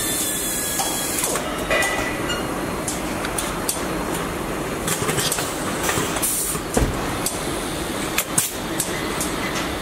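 Car assembly plant noise: a steady machinery din with scattered metallic clicks and clanks, and short bursts of air hiss near the start and about six seconds in.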